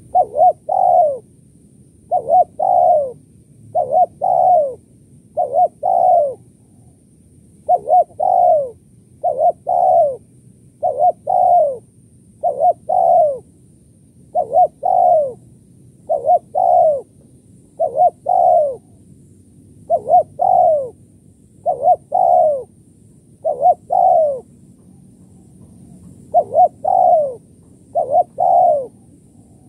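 Spotted dove cooing in the 'kuk 1-2' call type that Indonesian tekukur keepers name. Each phrase is a short note followed by a longer note that falls in pitch, repeated about every two seconds with one brief pause near the end.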